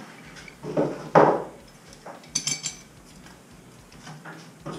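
Metal hand tools knocking and clinking as they are picked up and handled: two heavier knocks about a second in, then a short jingling metal rattle.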